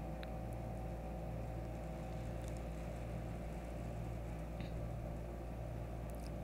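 A steady low mechanical hum, with a couple of faint ticks.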